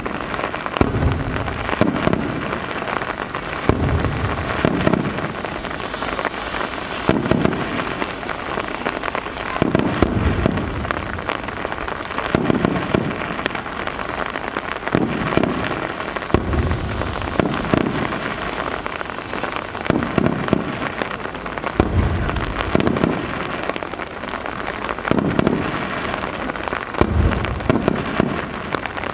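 Steady rain falling, with deep fireworks booms coming about every two to three seconds.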